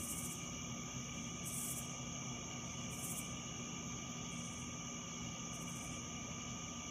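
Crickets trilling steadily, with a higher insect note pulsing about every second and a half, over a low steady hum.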